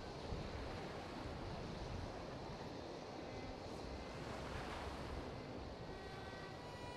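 Steady rushing of sea surf breaking on a beach.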